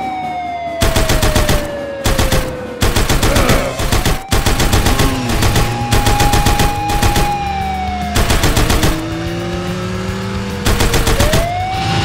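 Battery-operated toy police car playing its electronic sound effects: a siren tone that slides down and back up, broken by repeated bursts of rapid machine-gun fire.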